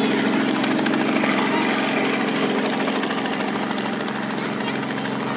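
Light helicopter running: a steady engine drone with a rapid, even rotor chop.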